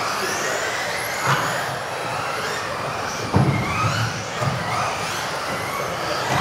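Several electric RC off-road cars racing, their motors whining in overlapping rising and falling notes as they speed up and slow down. A single sharp thump about three seconds in.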